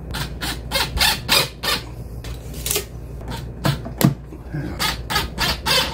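A string of short, irregular squeaks and clicks as the overhead track of a vinyl accordion door is pressed against the head jamb and a cordless drill is set to its mounting screw.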